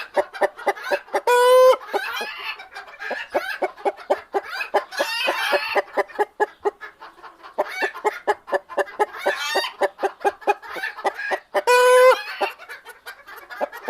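Chicken clucking in a fast, steady run of short clucks, broken twice by a longer drawn-out squawk, once about a second in and again near the end.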